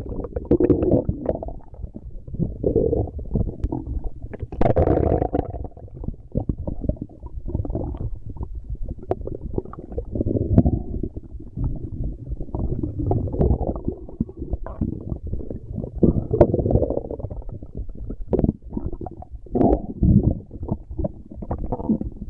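Stomach growling: a continuous run of irregular low rumbles and gurgles, broken by many short pops, with a brighter, higher gurgle about five seconds in.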